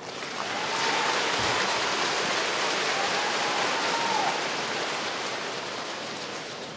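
Arena crowd applauding, swelling in the first second and fading slowly toward the end, with a few faint whistles or shouts in it.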